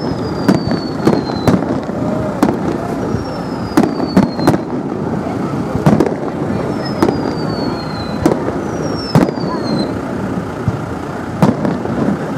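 Aerial fireworks display: about a dozen sharp bangs of shells bursting at irregular intervals. Four high whistles, each sliding down in pitch over about a second, are mixed in.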